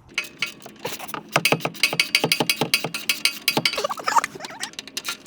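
Ratchet wrench clicking in a rapid run of metallic clicks, about six a second, as the handle is swung back and forth on the exhaust hardware.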